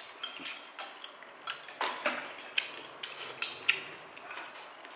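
Eating utensils clinking and tapping against bowls and dishes during a meal: a dozen or so short, scattered clinks at irregular intervals.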